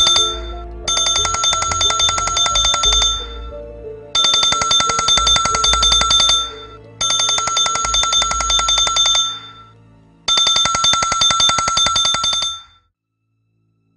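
Mobile phone ringing with a rapid trilling ringtone, in rings of about two and a half seconds separated by short pauses. The end of one ring is followed by four full rings, and the ringing stops about thirteen seconds in.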